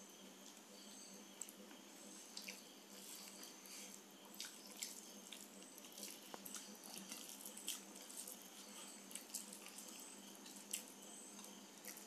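Faint eating sounds: wet little clicks and smacks of fingers working rice on plastic plates and of chewing, scattered and irregular over a low steady hiss.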